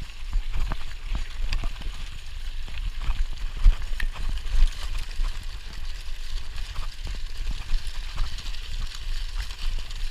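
Bicycle riding over a gravel trail: tyres crunching on loose stones, with frequent clicks and rattles from the bike, under steady wind rumble on the microphone.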